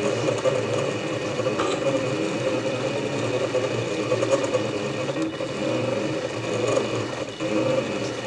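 MakerBot Cupcake CNC 3D printer running, its stepper motors whirring with a steady multi-toned hum as the axes move, with a brief dip about seven seconds in.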